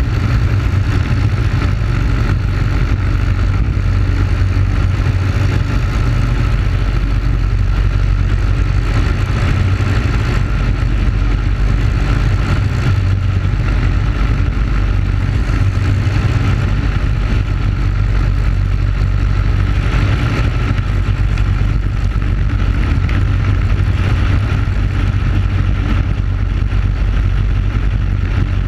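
Briggs & Stratton Animal single-cylinder four-stroke kart engine running at speed, heard onboard, holding a steady pitch with no lift or revving throughout.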